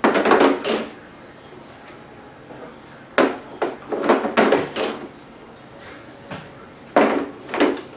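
Handling clatter as batteries are fitted into the keyboard's battery compartment: three bursts of knocks and rattles, at the start, from about three to five seconds in, and near the end.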